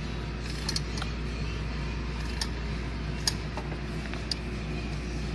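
Scattered small metallic clicks of a 10 mm ratcheting wrench working on intake bolts, over a steady low hum.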